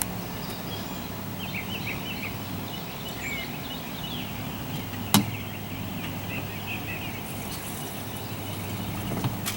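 Outdoor background: small birds chirping over a steady low hum, with one sharp click about five seconds in.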